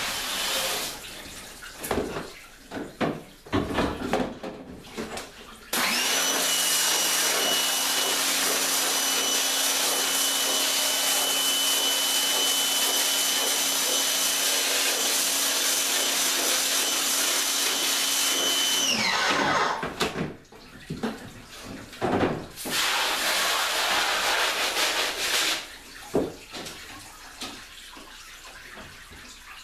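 Pressure washer running steadily with a motor hum and a hiss of spray for about thirteen seconds. It starts suddenly about six seconds in and winds down near the end of that stretch, blasting water onto a screen-printing screen to reclaim it. Before and after, water sprays against the screen in short bursts.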